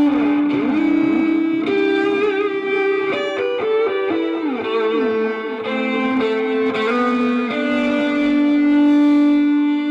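Live instrumental music: an electric guitar through effects, playing long sustained notes that slide and step between pitches, settling back onto a long held low note near the end.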